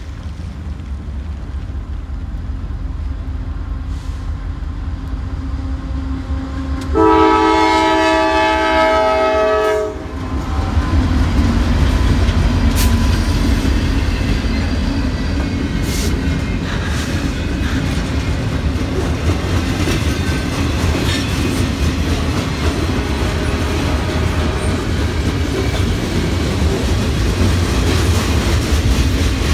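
Freight train approaching and passing through a grade crossing: a rumble builds, then the locomotive horn sounds one loud chord held for about three seconds. The diesel locomotives and freight cars then rumble past, with wheels clattering over the rail joints and occasional sharp clanks.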